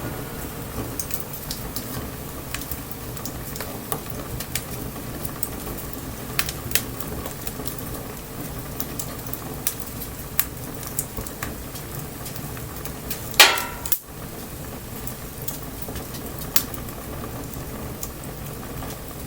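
Wood bonfire crackling, with sharp irregular pops over a steady hiss, and one louder pop about two-thirds of the way through.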